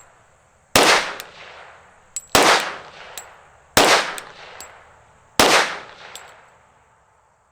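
Four 10mm pistol shots from a Glock 40, evenly spaced about a second and a half apart as a slow aimed group, each with a short echoing tail and a light tick after it.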